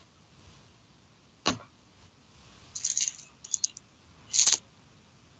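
A few scattered sharp clicks and short rustling noises: one click about a second and a half in, a cluster of rustles and ticks around three seconds, and a louder rustle near the end.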